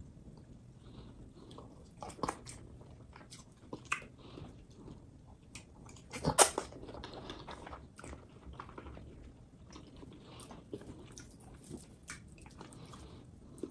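Close-miked chewing and wet mouth sounds of someone eating fufu, with scattered small clicks and one louder bite or smack about six seconds in.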